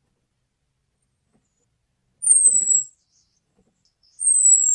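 Orange-headed thrush calling: thin, high whistled notes that fall slightly in pitch, two of them about two seconds apart. This is the call used as a lure to draw in male orange-headed thrushes.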